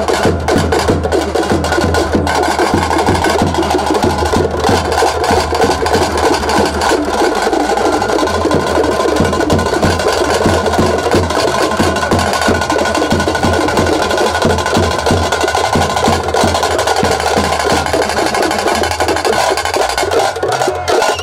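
Music with loud, fast drumming and percussion that goes on without a break.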